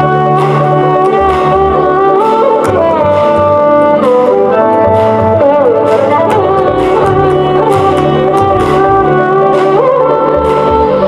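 Instrumental music: a melody of held notes that slide from pitch to pitch over a steady drone, with regular percussive strikes.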